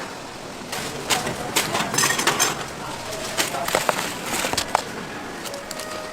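Background voices with a run of sharp clicks and clatters.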